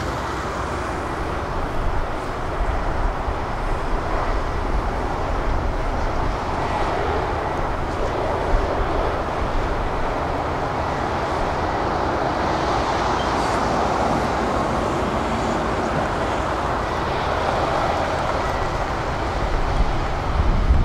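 Diesel engines of a Hitachi tracked excavator and a tracked piling rig running steadily, a continuous mechanical drone.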